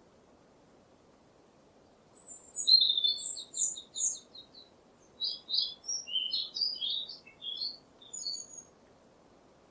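A small songbird singing two quick, varied phrases of high chirps and trills, the first starting about two seconds in and the second after a short pause, over a faint steady background hiss.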